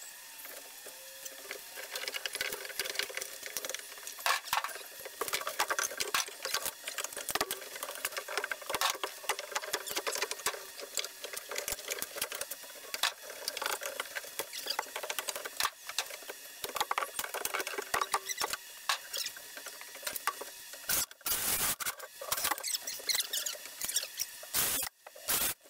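Rapid, sped-up clatter and crackle of old subfloor boards being pried up and broken out from between the floor joists, with a couple of brief louder bursts near the end.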